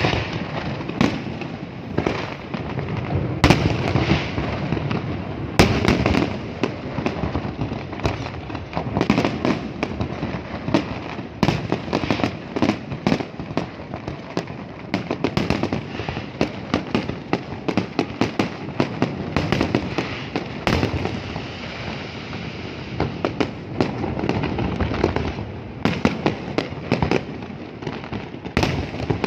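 A fireworks display going off in a dense barrage: rapid bangs and crackling with no let-up, and louder single bangs every few seconds.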